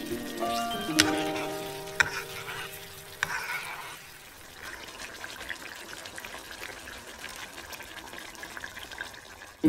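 Thick chicken gravy sizzling as it heats in the pan, a steady faint hiss, with a few light clicks early on. A tune of plucked notes plays over the first few seconds and then stops.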